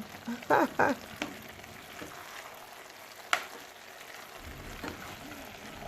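A spoon clinking and scraping against a dish or pot, a few sharp clicks over a steady hiss, with a brief hum of voice near the start.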